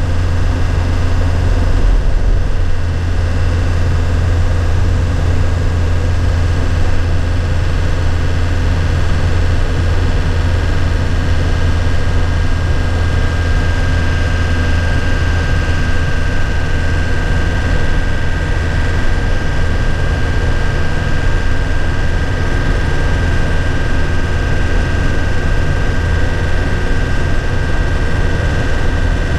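2001 Nissan Cabstar truck's engine running steadily, heard from inside the cab as a constant low drone, with a thin high whine that grows a little stronger about halfway through.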